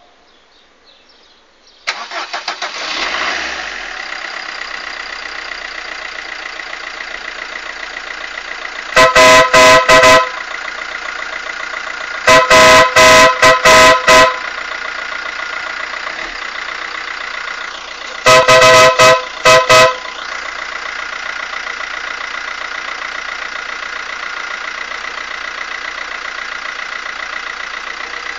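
Aftermarket Ferrari-style horn on a Fiat Palio sounding in three bursts of rapid, very loud short blasts, each blast a chord of several tones. Under it, a steady mechanical running sound starts suddenly about two seconds in.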